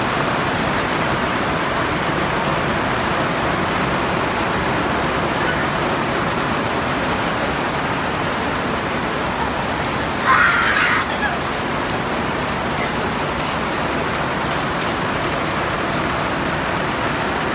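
Steady rain falling and splashing on a concrete walkway, with a brief louder burst about ten seconds in.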